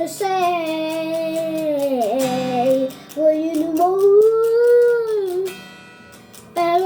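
A voice singing long, held notes over a strummed acoustic guitar: two sung phrases, then a short lull before the voice comes back near the end.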